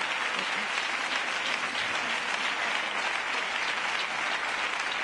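Studio audience applauding a punchline: dense, steady clapping that holds at an even level throughout.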